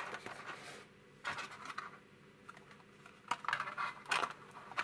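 Hands handling a moulded plastic packaging tray and cardboard box while lifting a soldering iron out of its insert: light rustling, scraping and small plastic clicks in a few short bursts, the longest near the end.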